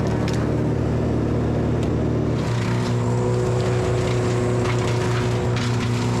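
A motor engine running steadily at a constant speed, its tone shifting slightly about two and a half seconds in.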